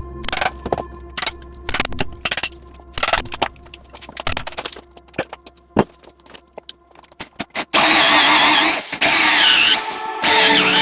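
Irregular sharp taps and knocks of tools working a wooden log, then about eight seconds in a loud power tool starts running, its pitch rising and falling, over background music.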